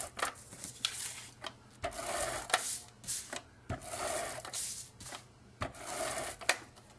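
Handheld adhesive tape runner rolled across cardstock in several quick strokes, each a short rasping whir as the tape lays down, with sharp clicks as the runner is lifted and set down between strokes.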